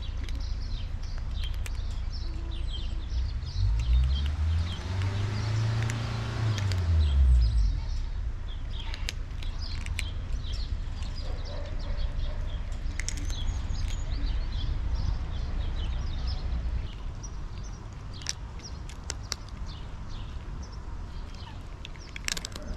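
Outdoor ambience: small birds chirping over a steady low rumble. A deeper hum rises and then falls in pitch about four to eight seconds in.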